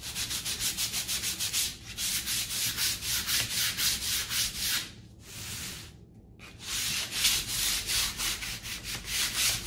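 180-grit sandpaper rubbed by hand in quick, short back-and-forth strokes over a painted MDF picture frame, at about six strokes a second, taking the paint off where solid wax lies beneath it to give a distressed shabby-chic finish. The strokes pause for about two seconds a little past the middle, then carry on.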